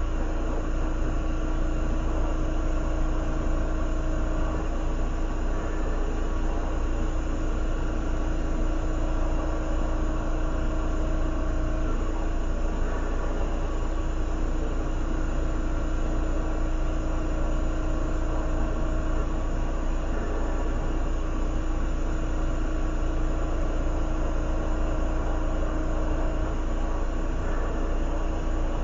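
Steady rushing of a glassworking torch flame, with a constant hum underneath.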